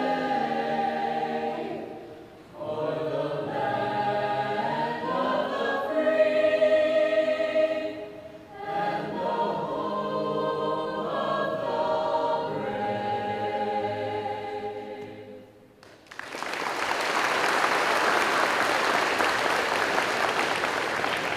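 A small mixed-voice show choir singing in unaccompanied harmony, in three long phrases with short breaks between them, ending its song about sixteen seconds in. The audience then applauds steadily.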